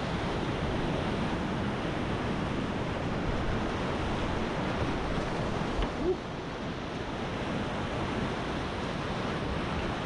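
Whitewater rapids rushing: a steady noise of churning river water, with a brief knock about six seconds in.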